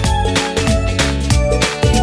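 Background music with a steady drum beat and deep bass.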